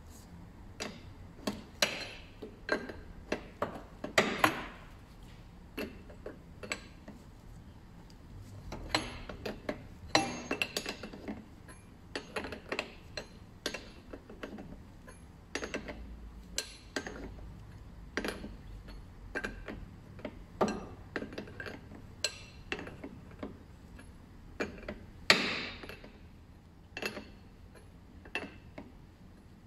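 Irregular metallic clicks and clinks, about one or two a second, from tools and a braided oil cooler hose fitting being threaded on and tightened under the car, with a couple of short rattles.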